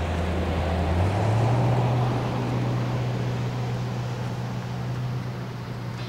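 Car engine hum and road noise from a moving car, the engine's low steady note stepping up in pitch about a second in.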